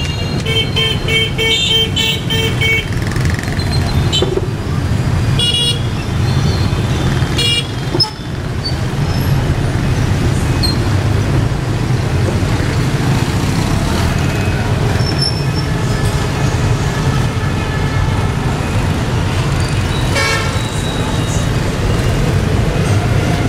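Street traffic of motorbikes and small trucks running steadily, with horns tooting: a quick run of short, evenly repeated beeps in the first few seconds and several more single honks later on.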